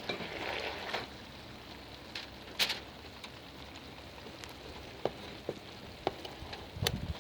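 Chicken sizzling on a grill: a steady hiss of fat cooking, with scattered sharp pops.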